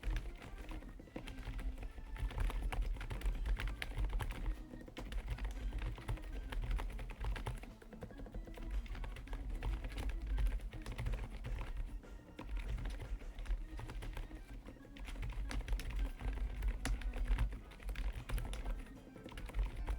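Typing on a Lofree Flow Lite low-profile mechanical keyboard with full-POM switches: fast, continuous keystroke clacks with brief pauses every few seconds. Background music plays underneath.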